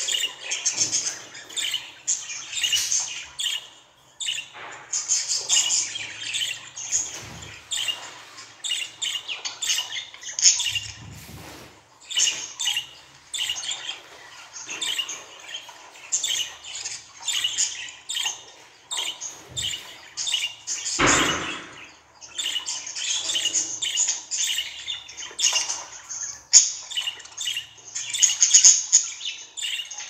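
Budgerigar chattering, a rapid, almost unbroken run of high chirps, warbles and squawks. A brief rustling noise comes about two-thirds of the way through.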